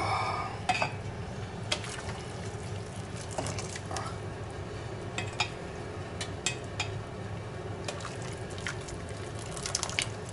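Scattered light clinks and scrapes of metal utensils against a kazan as cooked noodles are fished out of boiling water with a colander, over a steady background hiss.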